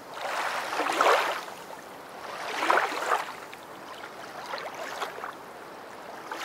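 Rushing water, like waves washing in, swelling and fading roughly every two seconds.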